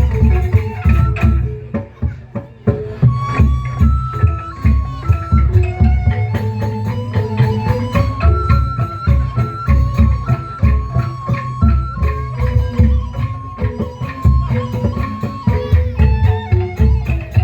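Instrumental dance music with a steady drum beat, heavy bass and a melody of held notes stepping up and down.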